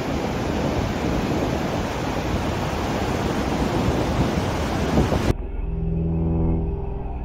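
Loud rumbling roar of an earthquake shaking a town of houses. It cuts off abruptly about five seconds in, and ominous music with long low tones follows.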